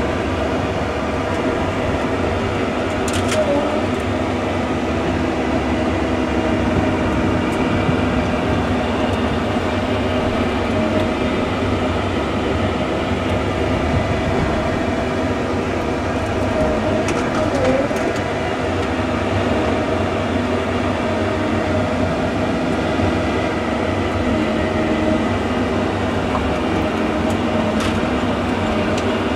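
Cat 309 mini excavator's diesel engine running steadily under load as it works stumps, a continuous drone with a few faint knocks.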